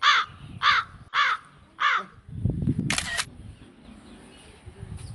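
A crow cawing four times in quick, even succession, then a short burst of noise with a low rumble about three seconds in.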